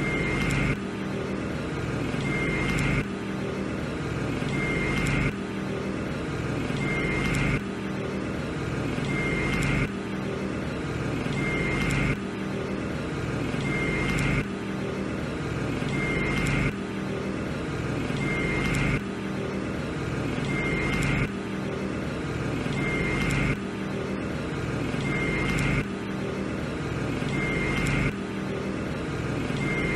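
A looping background drone that swells in loudness and drops back about every two and a half seconds, with a short high beep at the end of each swell.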